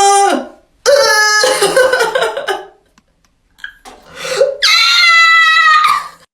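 A person's loud, high-pitched vocal outbursts: a drawn-out cry that breaks off just after the start, a rougher, noisier burst about a second in, and a long wailing cry near the end that sags slightly in pitch.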